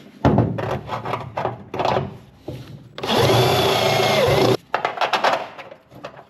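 Power drill running a step bit in a seatbelt bolt hole in the Jeep's steel body for about a second and a half, enlarging it one size so the bolt fits, its pitch dropping as it stops. Before it come a few knocks and clatter of tools being handled.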